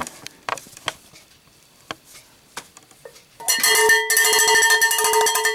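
A few faint clicks and taps, then about three and a half seconds in a cowbell is struck rapidly over and over, ringing loudly.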